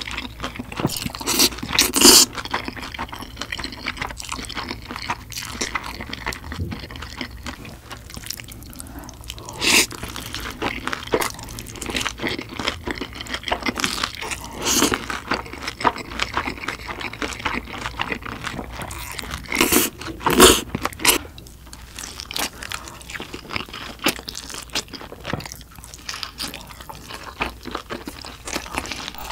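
A person eating spicy noodles close to the microphone: continuous wet chewing and mouth sounds, with louder mouthfuls about two, ten, fifteen and twenty seconds in.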